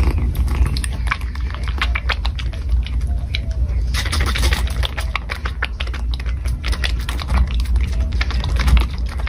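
Kitten suckling milk from a feeding bottle: a rapid, irregular run of small clicks, over a steady low rumble.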